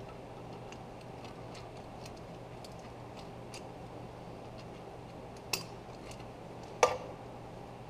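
Scattered light metallic clicks of a hand tool turning a broken, seized exhaust manifold stud out of a Ford 351 Windsor cylinder head, with two sharper metal clinks near the end, the second the loudest.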